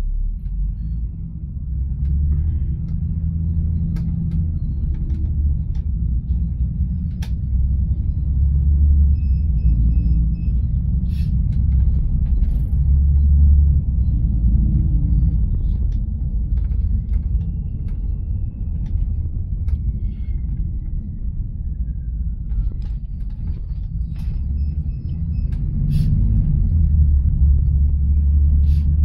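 Low, steady rumble of a moving road vehicle heard from inside, rising and falling in level, with a few faint clicks and rattles.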